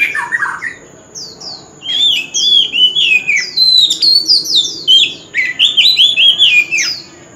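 Male oriental magpie-robin singing. A brief phrase opens, then from about two seconds in comes a long, loud run of quick varied whistles sliding up and down, stopping just before the end.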